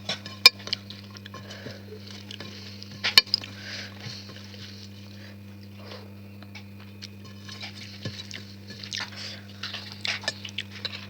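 Eating sounds at a plate: scattered small clicks and clinks of dishes, with two sharp louder clicks, one about half a second in and one about three seconds in, over a steady low hum.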